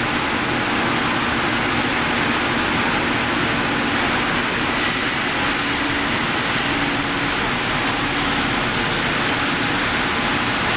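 Steady machinery din of a steel section rolling mill at work, a loud even noise with faint hums running under it.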